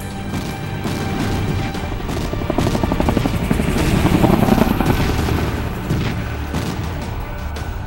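Helicopter sound effect, a fast rotor chop that swells to its loudest about four seconds in and then eases off, over background music.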